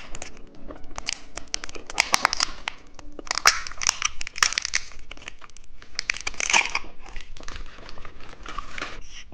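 Candy wrapper crinkling and tearing as it is opened, an irregular run of crackles with louder bursts about two, four and six and a half seconds in.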